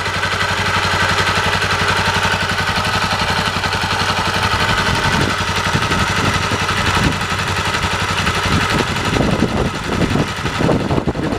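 Honda Silk Road's single-cylinder four-stroke engine idling steadily with an even, rapid exhaust pulse. It is running at slow idle with flushing oil in the crankcase to clean it out before the oil change.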